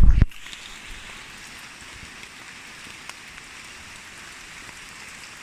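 A loud low rumble cuts off abruptly a fraction of a second in. It leaves a steady, even hiss of rain falling, with a few faint drop ticks.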